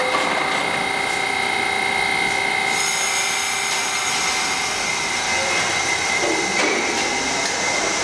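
R-68 subway train with its doors shut, its equipment giving a steady electrical hum and whine. It begins to pull out about six seconds in.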